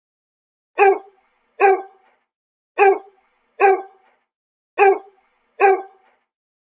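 A dog barking six times, in three pairs of two quick barks, each pair about two seconds apart.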